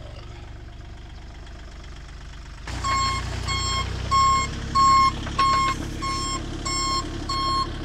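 Mini excavator's diesel engine idling, then working louder from about three seconds in as its travel/backup alarm starts beeping, a high beep about twice a second.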